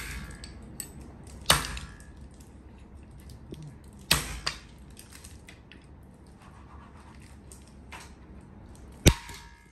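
Katana blade chopping down through wooden chopsticks into a wooden chopping board: three sharp chops, about a second and a half, four and nine seconds in, with a few lighter knocks in between.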